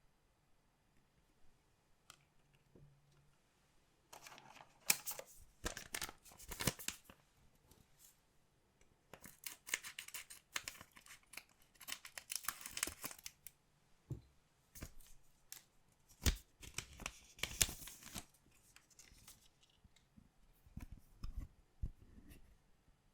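Collectible card pack wrappers being torn or cut open, with crinkling and sharp clicks in four separate bursts.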